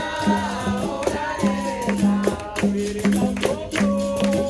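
Capoeira roda music: a berimbau's repeating twanging tone and a pandeiro's jingling strikes keep a steady rhythm while voices sing.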